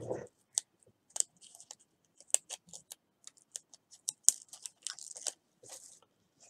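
Irregular small clicks and taps with a little rustling as card-making materials are handled.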